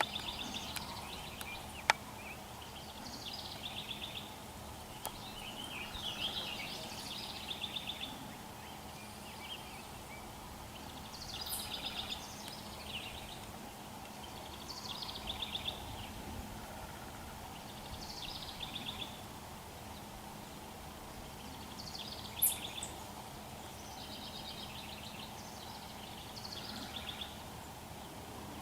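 Small birds singing short, high trilled phrases every couple of seconds over a steady low background hum. There is a sharp click about two seconds in and a louder one a little past twenty-two seconds.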